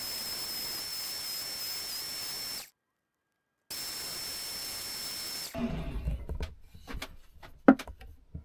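Electric power sander running steadily on wood, a hiss with a thin high whine. It breaks off into a second of dead silence, runs again for about two seconds and stops. A few light knocks and one sharp tap follow near the end.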